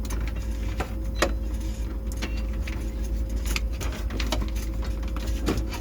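Steady low drone of a tugboat's onboard machinery, with a faint steady tone over it and scattered light clicks and knocks from handling equipment.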